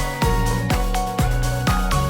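Background music with a steady beat, about two beats a second, over held electronic notes.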